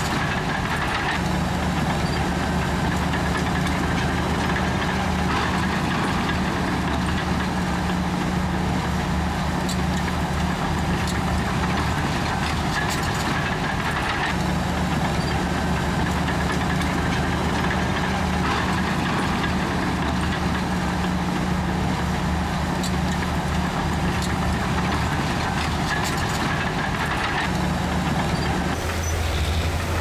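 Komatsu bulldozer's heavy diesel engine running steadily while working, its note dipping briefly about twelve seconds in and shifting lower near the end as the load changes.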